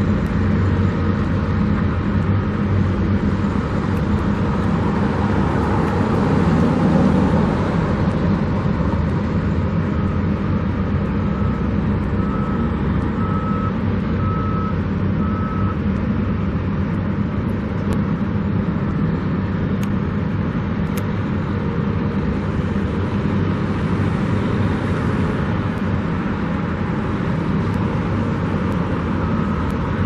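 Steady road traffic and engine noise around a construction site, with a faint backup alarm beeping about once a second in the middle and again near the end.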